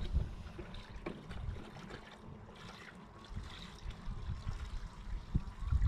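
Water trickling from a watering can into a plastic bucket.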